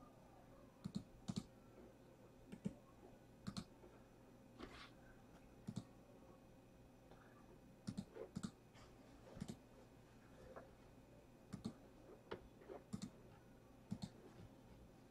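Faint, sharp clicks and taps at irregular intervals, some in quick pairs, over a faint steady hum.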